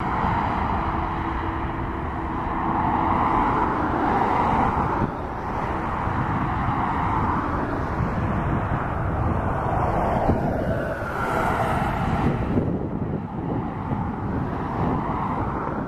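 Outdoor engine noise: a steady rushing rumble, with a pitch that falls away about ten to twelve seconds in as something passes.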